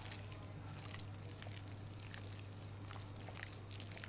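Gloved hand mixing raw chicken strips with beaten egg and marinade in a glass bowl: faint wet squelching with small scattered clicks, over a low steady hum.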